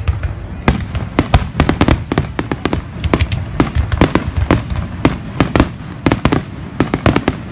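Fireworks going off in rapid, irregular succession: many sharp bangs, several a second, over a continuous low rumble of overlapping bursts.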